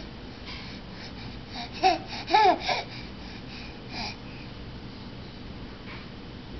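Baby babbling: three short rising-and-falling vocal sounds in quick succession about two seconds in, then a fainter one about four seconds in.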